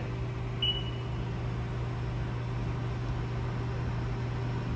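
Steady low electrical-mechanical hum of a powered-up Haas CNC lathe standing idle, its spindle stopped. A short, faint high tone sounds about half a second in and fades.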